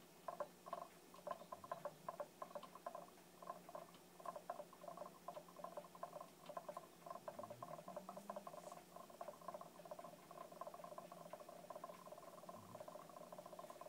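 A stone orb resting on an upturned cut-crystal glass, buzzing and chattering against it with a faint two-note ringing that comes in rapid, uneven pulses and turns into a steadier hum toward the end. The owner takes it for sympathetic vibration between the orb and the crystal.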